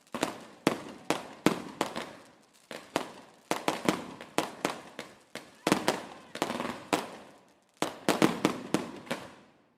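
Fireworks going off: a rapid string of sharp bangs, about two or three a second, each trailing off in an echo, coming in clusters with short lulls between.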